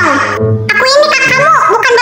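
High-pitched cartoon character voices speaking over background music.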